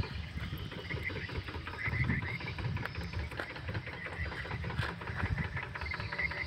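A dog eating from a plastic plate close by: rapid, continuous wet chewing and lapping.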